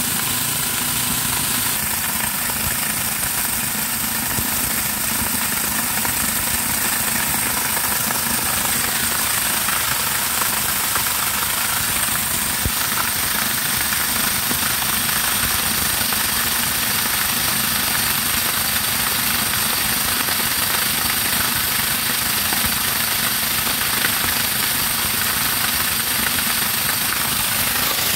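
Homemade electric corn grinder running steadily, grinding dried corn kernels into grits: a loud, continuous rattling grind.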